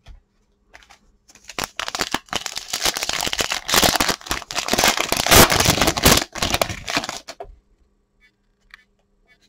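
Foil-plastic wrapper of a Topps Chrome baseball card pack crinkling and tearing as it is ripped open by hand, starting about a second and a half in and stopping abruptly about two seconds before the end.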